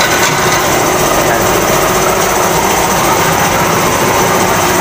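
Tire-shop machinery running with a steady, fast mechanical rattle.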